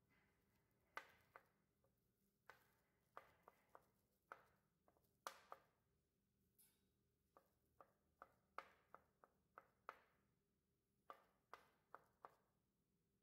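Kitchen knife chopping hard-boiled eggs on a plastic cutting board covered with plastic wrap: quiet, sharp taps of the blade on the board, irregular and in short runs.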